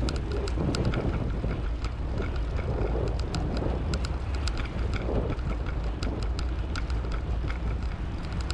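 Wind rushing over the microphone of a moving bicycle, a steady low rumble, with frequent small irregular ticks and rattles.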